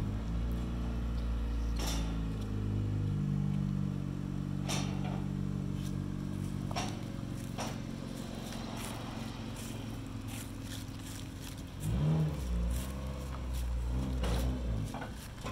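A 2010 Honda Fit B-Spec race car's four-cylinder engine idling steadily, while steel loading ramps clank sharply a few times as they are set against a trailer. Later the engine revs up and down as the car is driven up the ramps onto the trailer.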